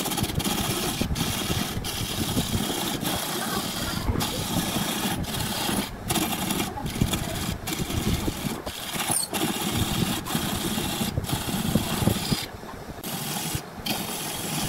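Wood lathe spinning a glued-up segmented wooden blank while a turning gouge cuts into it: a steady rough scraping with frequent brief breaks.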